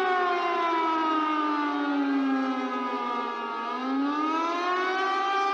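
Tsunami warning siren wailing: its pitch falls slowly for about three and a half seconds, then rises back up and holds, sounding the tsunami alert.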